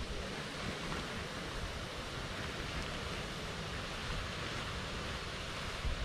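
Steady wind blowing across the open field, an even rushing hiss with no distinct events.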